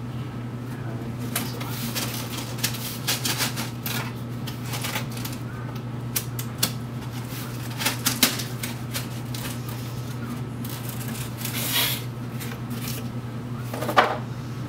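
Cardboard packing inserts being handled and pulled out of a 3D printer's frame: irregular rustling, scraping and light knocks, with a sharper knock near the end. A steady low hum runs underneath.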